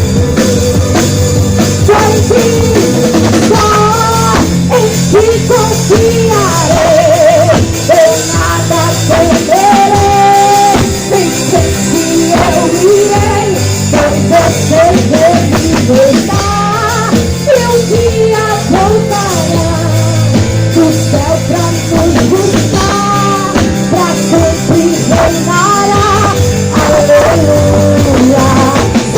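Loud live gospel worship music: a singer's melody over a full band with drums.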